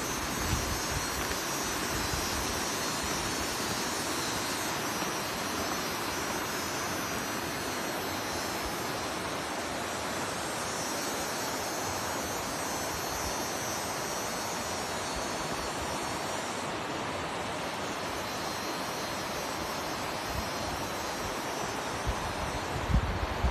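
Rushing water of a waterfall, a steady roar with no break.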